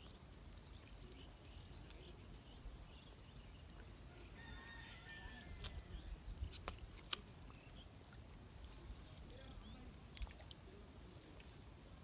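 Faint outdoor ambience: a low steady rumble with a few short faint clicks, clustered a little past the middle and once more near the end.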